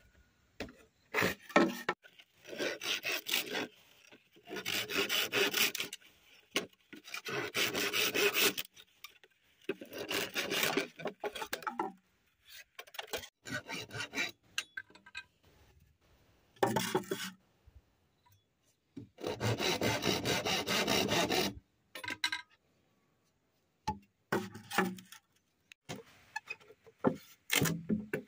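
Bamboo being cut with a machete blade worked back and forth like a saw: rasping strokes in bursts of one to two seconds, with short pauses between them, then a few short knocks near the end.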